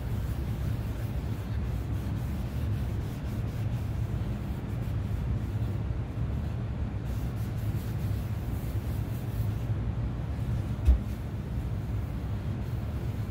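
A rag rubbing stain onto a wooden guitar body over a steady low rumble, with one short knock about eleven seconds in.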